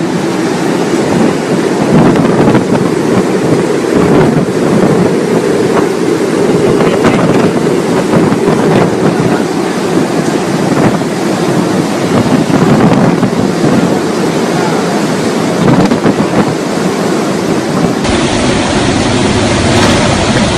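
Hurricane wind buffeting the microphone, a loud rushing roar that surges and eases in gusts. Near the end it gives way abruptly to a steadier low rumble.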